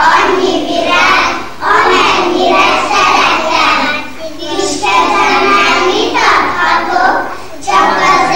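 A group of young kindergarten children singing together in unison, in phrases broken by short pauses for breath.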